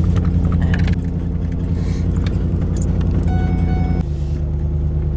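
Vehicle engine running with a steady low drone, its note dropping about a second in and again about four seconds in. A short pitched tone sounds for under a second just past three seconds in.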